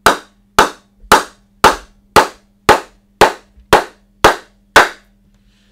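Wooden bat mallet knocking on the face of a new Kookaburra Ghost willow cricket bat, about two sharp wooden knocks a second, ten in all, stopping about five seconds in. It is the mallet test and the first knocking-in of the new bat.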